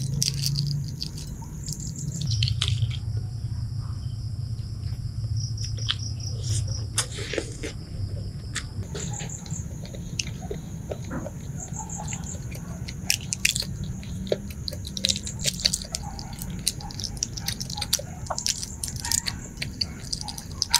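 Close-up eating sounds of balut: many small wet clicks and smacks of chewing and of fingers and eggshell being handled. A steady high trill, like crickets, and a low hum run underneath.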